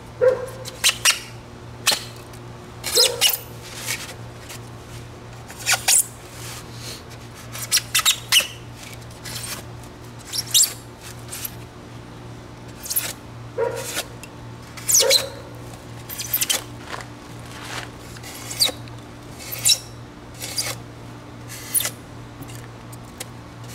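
A razor knife blade slicing through a Styrofoam (expanded polystyrene) block in short strokes, each giving a brief squeaky rasp, about one or two a second at an uneven pace. The corners are being trimmed off a foam nose section.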